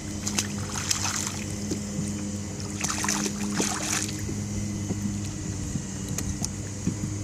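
A small boat's motor runs with a steady low hum. Two brief noisy bursts come about a second in and about three seconds in, with a few light clicks.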